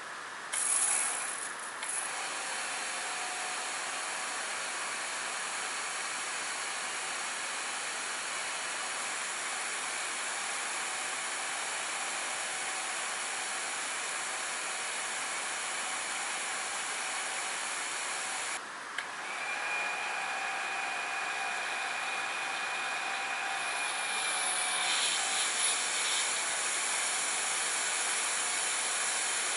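Kärcher K2 Compact electric pressure washer running and spraying asphalt: a steady hiss of high-pressure water with a faint whine from the motor and pump. It is first fitted with the concrete-cleaning nozzle, then, after a short break about two-thirds of the way through, with the car-wash nozzle.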